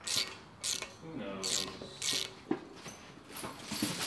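Socket ratchet wrench being worked in short strokes on an engine's intake manifold bolt, its pawl clicking; four or five strokes about half a second apart, mostly in the first half.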